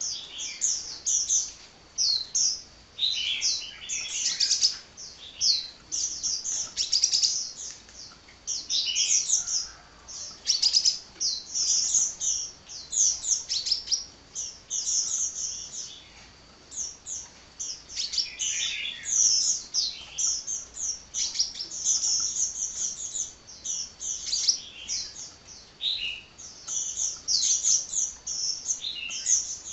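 Sunbird singing without pause: a rapid, unbroken stream of high, thin chirps and short trills.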